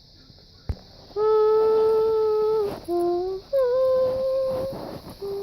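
A voice humming a few long, steady notes at different pitches, after a single click.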